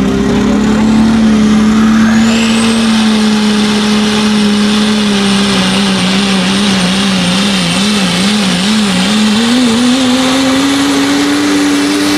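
Diesel Dodge Ram pickup's engine running at full power, dragging a pulling sled, with a high turbocharger whistle that rises about two seconds in and holds. Midway the engine pitch wavers up and down several times, then climbs near the end.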